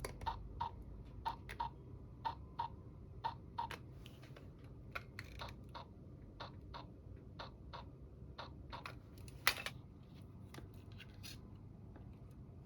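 Small plastic toy pieces being handled and set down: a run of light, irregular clicks and taps, thickest in the first few seconds, with one sharper click about two-thirds of the way through.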